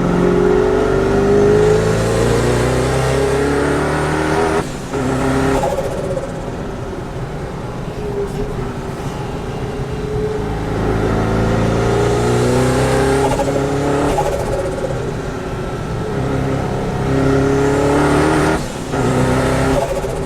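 Mazzanti Evantra's twin-turbo V8 accelerating hard, its note rising in pitch as it pulls through the revs, with short breaks at gear changes about five seconds in and near the end.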